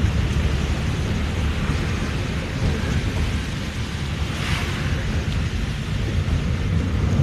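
Steady low rumble and hiss of a car driving through heavy rain, heard from inside the cabin: rain on the car and tyres on the wet road. A brief louder hiss comes about four and a half seconds in.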